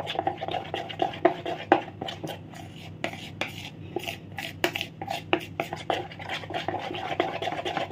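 A metal spoon stirring melted white compound chocolate in a plastic bowl, mixing in red food colour, with irregular scrapes and taps of the spoon against the bowl.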